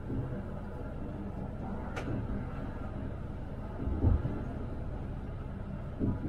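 Tram running along the track with a steady low rumble and hum, a sharp click about two seconds in, and two heavier low thumps about four and six seconds in.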